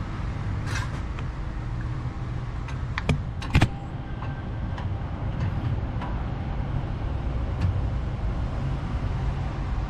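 A few metal knocks and clinks as a Hale fire-pump bearing housing is worked by hand onto the pump shaft, the loudest two a little after three seconds in, about half a second apart. A steady low rumble runs underneath.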